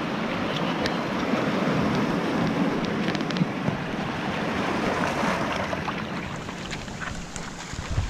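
Surf breaking on the shore with strong onshore wind buffeting the microphone: a steady rushing noise that eases slightly near the end.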